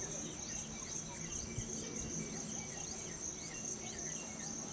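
Insects trilling steadily at a high pitch, with short falling chirps repeating about twice a second over the top.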